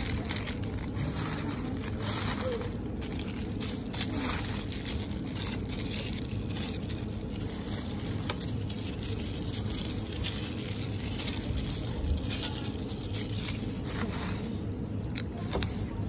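Steady low background rumble with a faint low hum, and a few light clicks and taps scattered through it.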